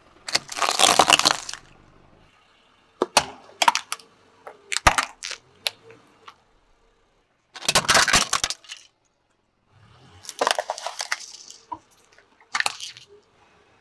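A car tyre rolling over and crushing small plastic toys and a bag of beads: a series of separate crunching and cracking bursts with sharp snaps, several seconds apart.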